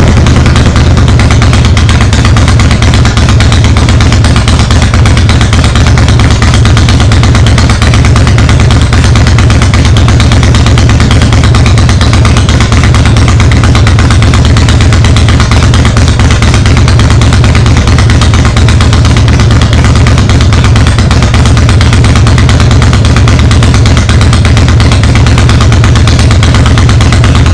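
Harley-Davidson Fat Boy's V-twin engine idling loud and steady, just after being started with a newly fitted voltage regulator.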